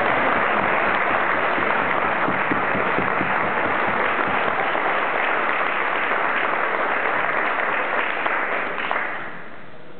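Audience applauding steadily, dying away about nine seconds in.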